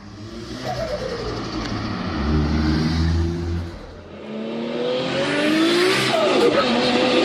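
Turbocharged car engine revving, then the throttle closing with a turbo flutter. About four seconds in it drops away, climbs again, and falls off with a fast rippling chatter near the end.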